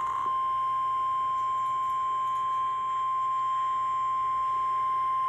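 NOAA Weather Radio 1050 Hz warning alarm tone from an iRonsnow IS-399 weather radio: one steady, unbroken high beep with no change in pitch. It is the attention signal that comes before a National Weather Service warning message, here a severe thunderstorm warning.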